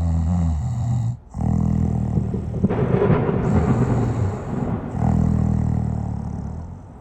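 A sleeping person snoring: low breaths one after another, with a short break a little over a second in.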